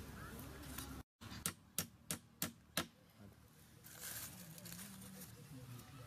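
A hammer striking the wooden frame of a transitional beehive: five sharp knocks at about three a second, as the pieces of the frame are nailed together.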